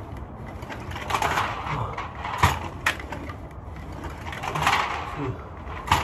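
A person doing ab wheel rollouts: hard breaths in bursts with sharp knocks every second or two over a low rolling rumble.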